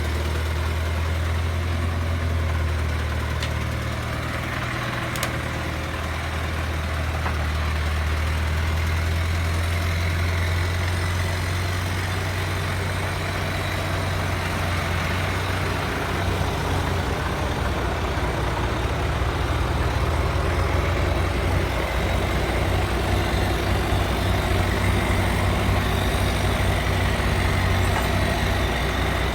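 Engine of a heavily loaded truck running with a steady low drone, which turns rougher and more uneven about halfway through.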